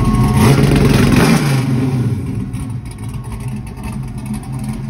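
Parked car's engine running loud, revved up in the first second or so, then settling back to a steady idle.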